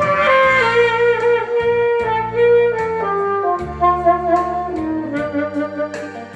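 Saxophone playing a slow melody of held notes that step mostly downward, over a backing track with bass and a steady drum beat.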